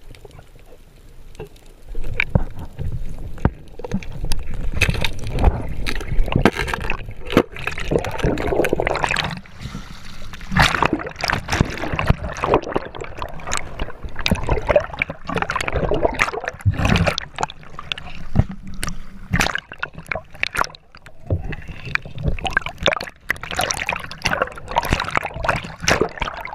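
Water splashing and sloshing in irregular bursts, mixed with many sharp knocks.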